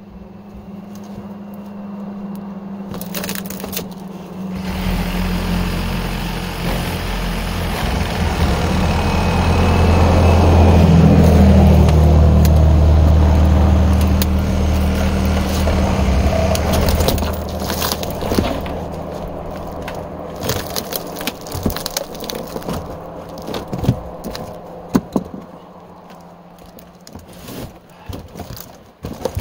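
Wood and fiberglass RV debris cracking and crunching as it is broken up and loaded into a trailer, loudest about halfway through. Sharp knocks and clatter follow as pieces are handled, over a steady low hum.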